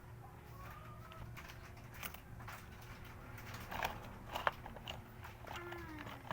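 Irregular small clicks, taps and crackles, with a few sharper clicks around the middle, and a short falling pitched sound near the end.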